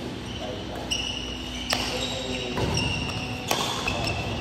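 Badminton rally: rackets striking the shuttlecock with sharp cracks, about one every second and three-quarters, and sneakers squeaking briefly on the court floor between the hits, in a large hall.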